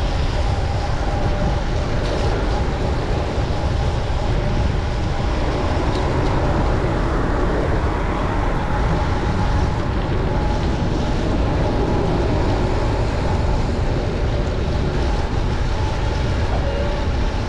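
Steady wind and road noise from riding a bicycle in the rain: a constant low rumble of wind on the microphone with a hiss over it.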